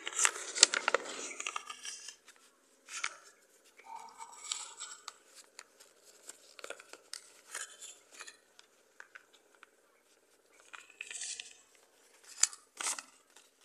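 A sheet of paper being folded and creased by hand to make a paper boat: short bursts of crackling and rustling with pauses between, busiest at the start and again near the end.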